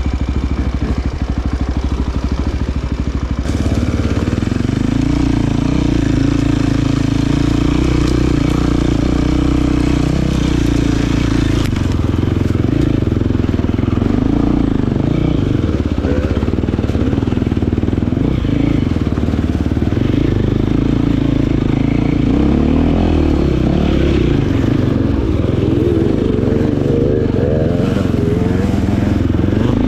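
Enduro dirt bike engine running and revving up and down, heard from on the bike as it is ridden over a trail. The sound steps up in loudness about three and a half seconds in.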